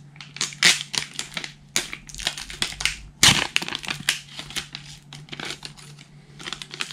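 Foil card-pack wrapper being torn and peeled open, crinkling and crackling in a quick run of sharp crinkles, the loudest a little over three seconds in.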